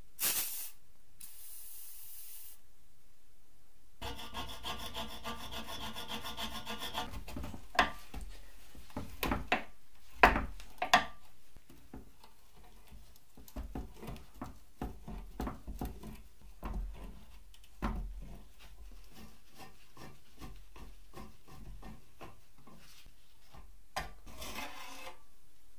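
Pliers and a screwdriver scraping and clicking against the rusted metal parts of a filmoscope as it is taken apart: a steady rasping stretch a few seconds in, a few sharp metallic clicks around ten seconds in, then scattered small scrapes and clicks.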